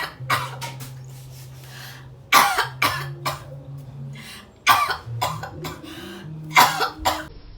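A woman's faked coughing fit: short, hard coughs in clusters about every one to two seconds, over a faint steady low hum.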